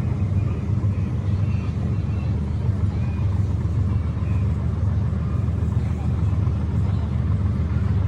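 Steady low rumble at an even level.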